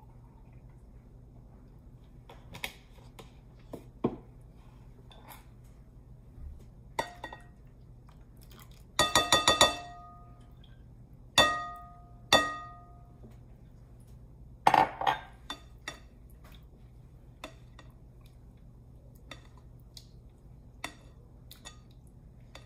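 Glassware and a metal utensil clinking against a glass mixing bowl as whipping cream is poured in and folded into the mixture. A quick run of ringing clinks comes about nine seconds in, then two single ringing strikes and a cluster of knocks, with light taps and scrapes between.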